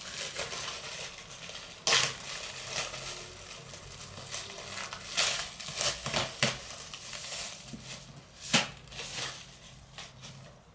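Book packaging being unwrapped by hand: continuous crinkling and tearing of wrapping, with several sharp crackles, the loudest about two seconds in and near the end.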